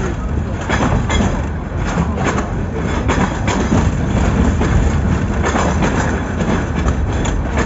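Passenger train running along the track, heard from inside a carriage: a steady low rumble with scattered clacks of the wheels on the rails.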